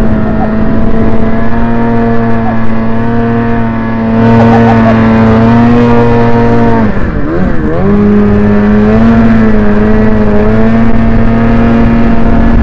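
Snowmobile engine running steadily at speed, heard from the rider's seat, with a rushing hiss over it that grows louder about four seconds in. About seven seconds in the revs drop and waver briefly, then climb back to the same steady pitch.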